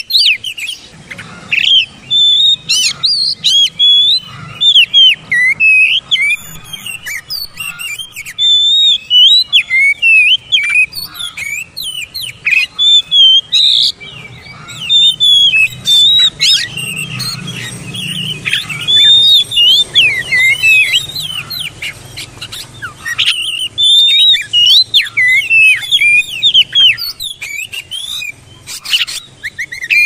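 Oriental magpie-robin singing a long, varied song of quick, sharply gliding whistles and chattering notes, delivered in loud phrases with short pauses between them.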